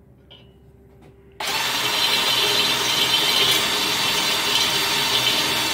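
Cordless drill on high speed spinning a tapered die grinder bit in a small pilot hole in bed rail steel, grinding the hole bigger. It starts suddenly about a second and a half in and then runs on as a steady, loud grind.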